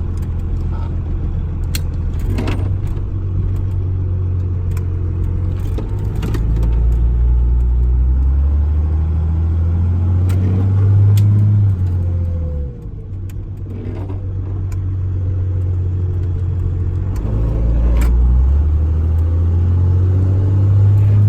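12-valve Cummins inline-six diesel on a straight-piped exhaust, pulling the truck under load. The engine note climbs steadily, drops sharply about twelve seconds in as the revs fall, then climbs again. Light clicks and rattles come and go throughout.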